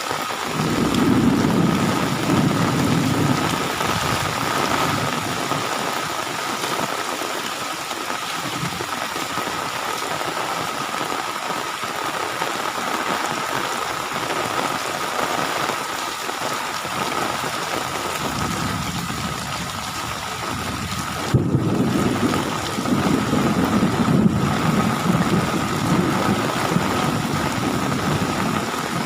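Heavy rain pouring steadily in a thunderstorm, with low rumbles swelling up near the start and again in the second half, the later one starting suddenly about 21 seconds in.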